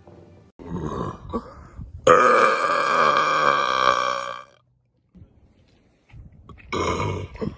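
A person burping: a rough short burp about a second in, then one long drawn-out burp lasting about two and a half seconds, and a shorter burp near the end.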